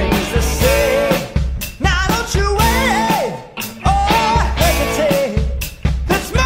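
Rock song with a singer's voice over a steady drum beat.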